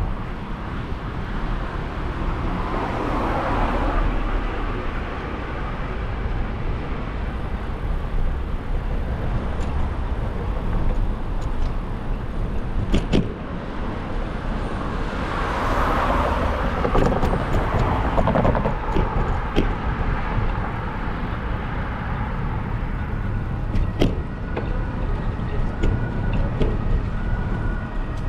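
City street traffic heard from a moving bicycle: a car passes early on and another a little past the middle, over a steady low rumble. A few sharp clicks or knocks are heard, one about halfway through and one near the end.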